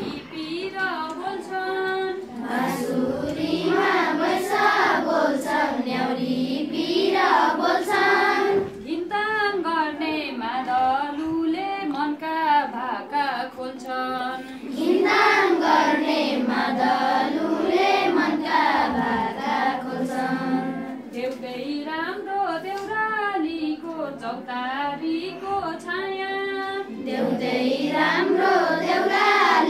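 A class of schoolchildren singing a Nepali poem together in unison, their voices rising and falling in a simple melody.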